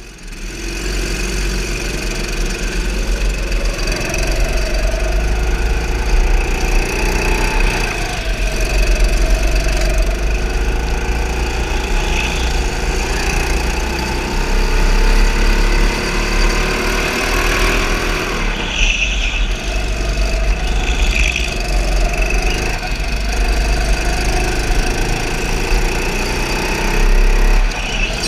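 Go-kart driving fast, heard from on board: its motor's whine rises and falls with speed, over a steady low rumble of wind and vibration on the microphone. Brief tyre squeals come in the corners, about two-thirds of the way in.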